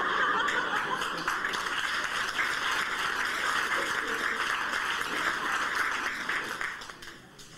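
Audience applauding steadily in a hall, dying away about seven seconds in.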